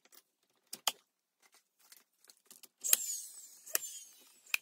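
Cordless nailer driving nails into a wooden window casing: three sharp shots roughly a second apart from about three seconds in, with a high whirring in between, after a few light clicks and taps.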